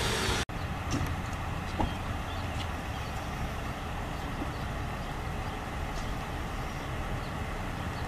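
Fire engine's diesel engine idling: a steady low rumble, which cuts out briefly about half a second in.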